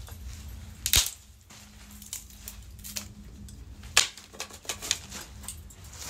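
Woody branches being cut and handled: sharp snips and cracks, the loudest about a second in and another about four seconds in, with several lighter clicks around them.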